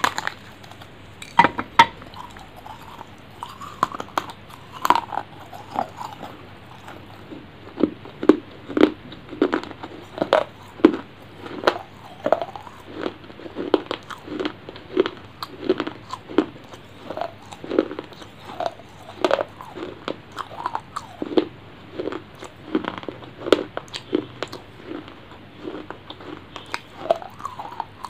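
Close-miked eating of mango pieces: a bite about a second and a half in, then steady, wet chewing, about one or two chews a second.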